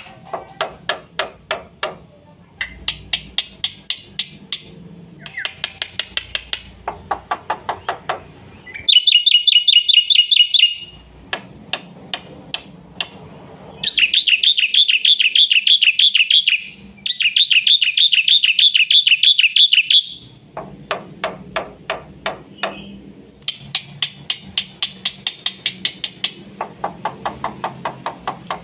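Black-winged myna (jalak putih) singing a fast, varied song: runs of rapid repeated notes, with three loud, high trills in the middle, the longest lasting about three seconds.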